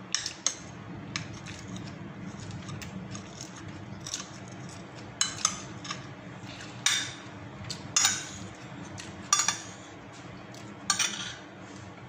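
Ceramic plate and bowl clinking lightly as food is picked from them by hand: eight or so short sharp clinks with pauses between, over a low steady hum.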